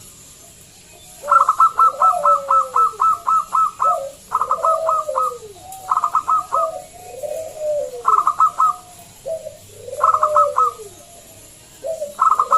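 Zebra dove (perkutut) singing: repeated phrases of quick, clipped notes followed by lower arching coos, starting about a second in and coming back roughly every two seconds. It is a loud, clear song of the kind used to lure other zebra doves into singing.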